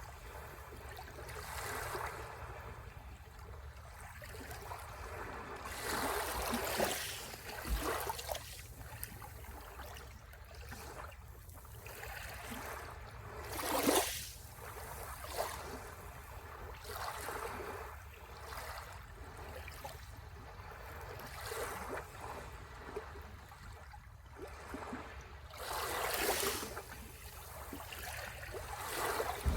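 Sea waves washing onto the shore, the surf swelling and falling away every several seconds, loudest about fourteen seconds in.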